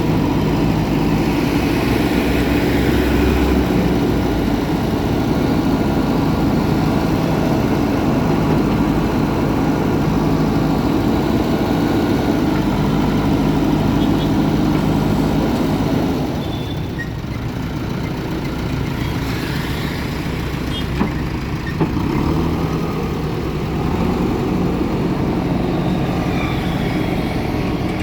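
Diesel engines of heavy road-construction machinery running steadily, dropping somewhat in loudness about halfway through, with a couple of sharp clicks or knocks near the end.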